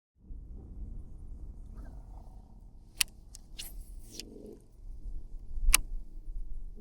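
Wind rumbling on the microphone, with two sharp clicks, one about three seconds in and one near the end, and a few short rushes of hiss between them.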